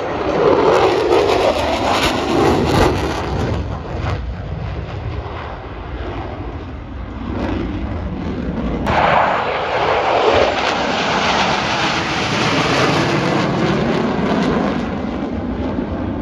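Thunderbirds F-16 Fighting Falcon jets flying past, a loud jet rumble that swells and fades as each aircraft goes by. It is loudest in the first few seconds, eases off in the middle, then comes back suddenly about nine seconds in and stays strong.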